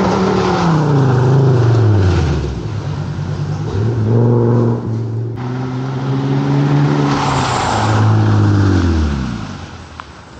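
Rally car engine at full throttle on a gravel stage, passing close by: its pitch drops, climbs again about four seconds in, holds, then falls away as the car goes off down the road and the sound fades near the end.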